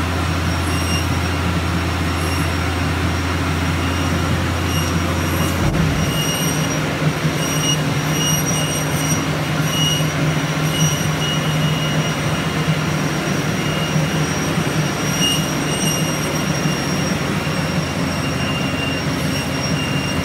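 Motorized treadmill running with a longboard's urethane wheels rolling on its moving belt: a steady hum with high thin squeals coming and going. The low hum changes abruptly about six seconds in.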